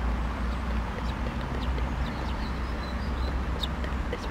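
Wind buffeting the microphone with a steady low rumble, with faint bird calls, ducks quacking among them, in the background.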